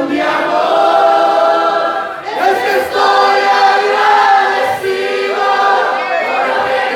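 A man and a young woman singing a Spanish worship song together through microphones, holding long notes, with a short break a little after two seconds in.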